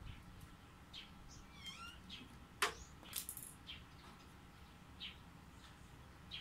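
Scattered short, high-pitched animal chirps and one brief curving call, with a single sharp click about two and a half seconds in, followed by a short scraping rustle.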